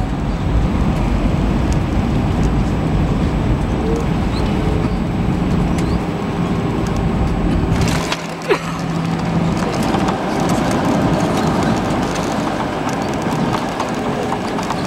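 Airbus A320 cabin noise on landing: a steady rush of engines and airflow, a sharp thump about eight seconds in as the wheels touch the runway, after which the deep engine noise drops. Rumbling and light rattling follow during the rollout.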